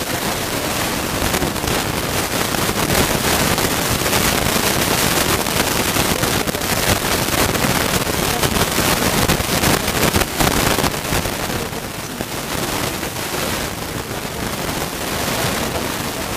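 Loud, steady rushing noise that all but covers a woman talking.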